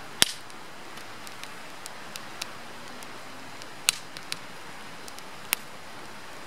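Firewood burning in a campfire: a steady hiss with scattered crackles and sharp pops, the loudest pop just after the start and two more strong ones about four and five and a half seconds in.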